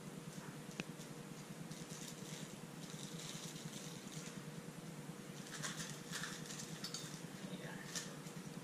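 Faint rustling and crinkling with a sharp click about a second in, from handling a stainless steel funnel and thin plastic ice candy wrappers, over a steady low hum.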